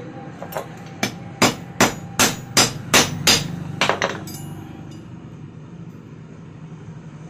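Hand hammer peening aluminium rivets on a steel rail anvil, setting the new bush in a cooler fan motor's housing. About nine sharp metallic blows, two or three a second, start with a couple of lighter taps and stop about four seconds in.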